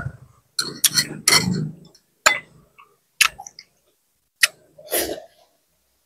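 Eating sounds: a few sharp clicks and short chewing and crunching noises, spaced irregularly with silent gaps between them.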